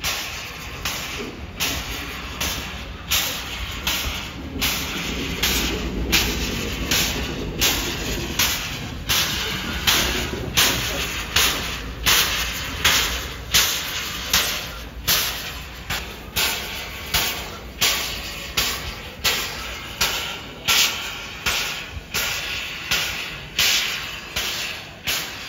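Steam locomotive moving off slowly, its exhaust chuffing in an even beat of a little over one chuff a second.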